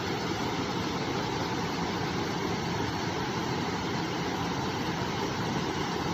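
River water flowing: a steady, unbroken rush of water.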